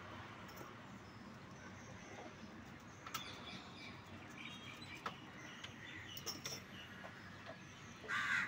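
Birds chirping and calling faintly in the background, with a few light clicks, and a louder call near the end.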